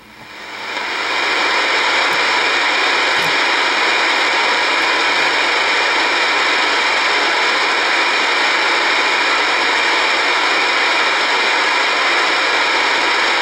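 Steady loud static hiss from an Icom IC-R8500 receiver tuned to the 119.900 MHz AM aircraft band, coming up over the first second after a transmission ends and then holding even.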